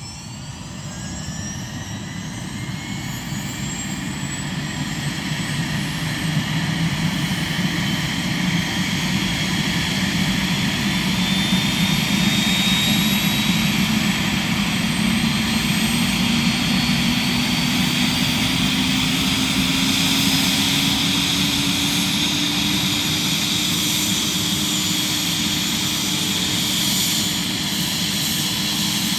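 Airbus H145 helicopter's turboshaft engines starting up: a turbine whine rising in pitch and growing louder over the first ten seconds or so, then running loudly and steadily while a low hum keeps rising slowly as the main rotor spins up to speed.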